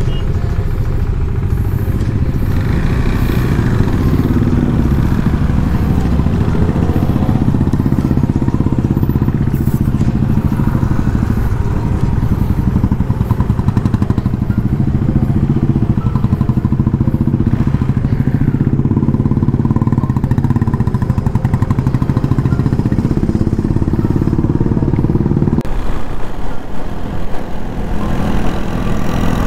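Motorcycle engine running under way, its note shifting a little with the throttle. About four seconds before the end the engine eases off to a lower, rougher note.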